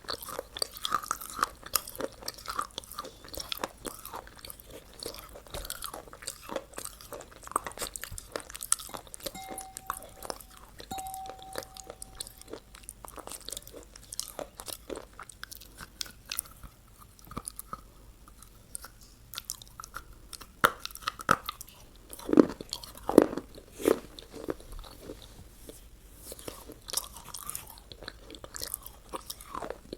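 Close-miked chewing and crunching of fast food, with irregular crisp bites and mouth sounds; the crunches get louder for a couple of seconds about two-thirds of the way through.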